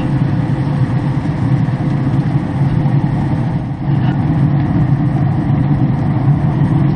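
Traeger wood pellet grill's fan running: a steady low hum and rumble with a faint whine on top.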